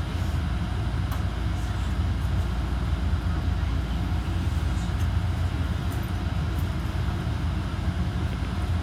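Steady low rumble and hum inside the cabin of a Fukui Railway F1000 low-floor tram, with a few faint ticks.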